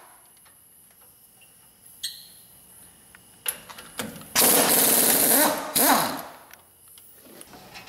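Air impact wrench with a 17 mm swivel socket hammering loose the front brake caliper's retaining bolts: two short bursts, then a long burst of about a second and one more short burst.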